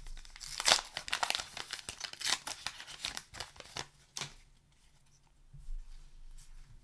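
A paper booster-pack wrapper being torn open and crinkled: a quick run of tearing and rustling that stops about four seconds in, followed by faint handling.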